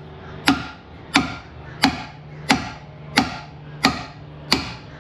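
Hammer blows on a steel steering knuckle, seven evenly spaced strikes about one and a half a second, each ringing briefly, driving at a ball joint stud seized in the knuckle.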